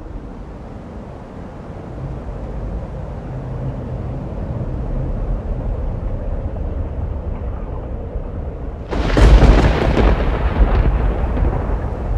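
Thunder sound effect: a low rumble slowly building, then a loud crack of thunder about nine seconds in that rolls away over the next couple of seconds.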